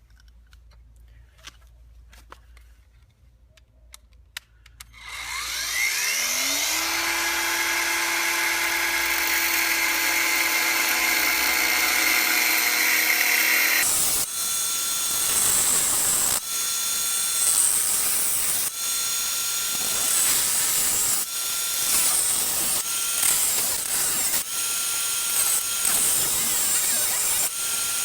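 Electric cutting tool spinning up with a rising whine about five seconds in and running free. From about fourteen seconds it cuts into a metal combination padlock's body, its pitch dipping again and again under load.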